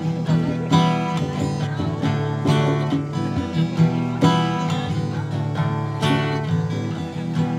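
Acoustic guitar strumming chords, with repeated strokes over a steady ring of chord tones.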